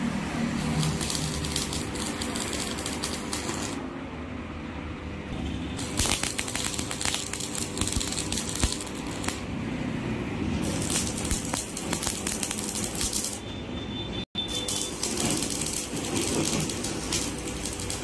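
Stick (arc) welding on mild-steel grill bars: the arc crackles and spits in four bursts of about three seconds each, with short pauses between as the welder moves from joint to joint.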